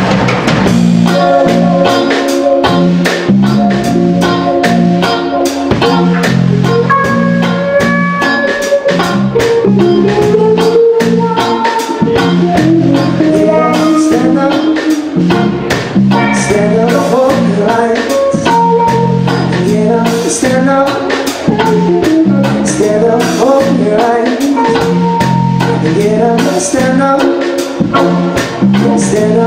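A live band playing through amplifiers: electric guitars over a drum kit keeping a steady beat, with a bass line underneath.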